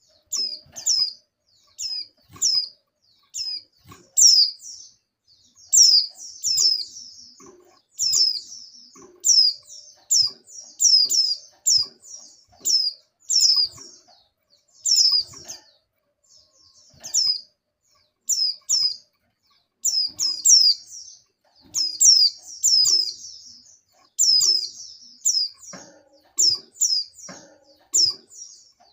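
Female white-eyes (pleci) calling and answering one another: short, high notes that each slide downward, in quick clusters of two to four separated by short pauses. The uploader presents these as the calls of females in breeding condition summoning males.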